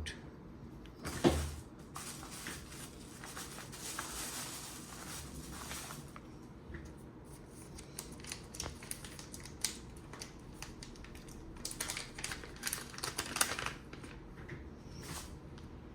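Light clicks, taps and rustling from handling small phone parts and tools while the Nokia G21's charging port board is swapped, with a louder knock about a second in and a run of sharper clicks near the end.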